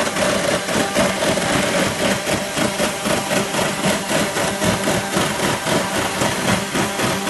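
A motorised tool running steadily, with a constant hum and a fast, even rattle.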